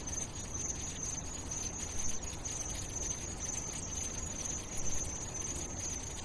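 Steady, high-pitched insect-like chirring over a faint low hiss, with no music or voice; it stops as music starts at the very end.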